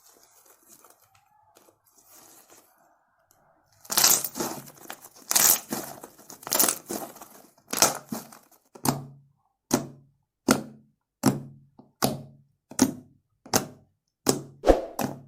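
Fluffy soap slime being squeezed and poked: a few seconds in, loud crackling and tearing sounds, then regular sharp pokes about every three-quarters of a second, each a soft thump with a crackle of popping air bubbles.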